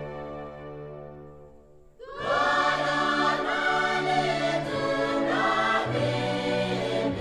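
Background music of a choir singing: a held chord fades away, then the choir comes back in loudly about two seconds in with a new phrase.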